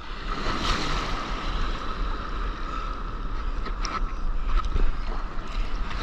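Whitewater of a broken wave rushing and hissing around a paddleboard riding it, heard close up from a board-mounted camera, with wind buffeting the microphone.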